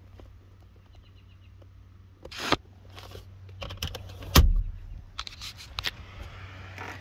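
Handling noises in a car's center console: a knock about two and a half seconds in, then a loud thump about four and a half seconds in as the console lid is shut, followed by a few smaller clicks. A bird chirps faintly about a second in, over a steady low hum.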